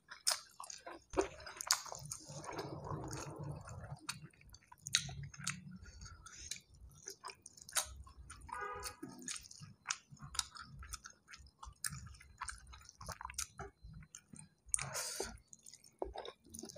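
A person chewing a mouthful of rice and curried food close to the microphone, with many short sharp mouth clicks throughout.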